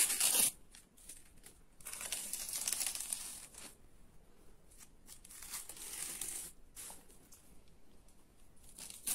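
Crinkly wrapping being peeled and torn off a dog, rustling in a few separate stretches of one to two seconds each.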